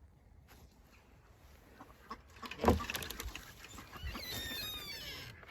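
A sharp thump about halfway through, then chickens squawking and cackling in a run of high, falling calls toward the end.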